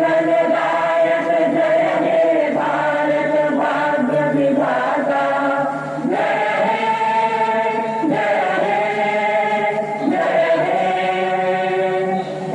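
A group of voices singing a slow song together in long held notes, each lasting about one to two seconds.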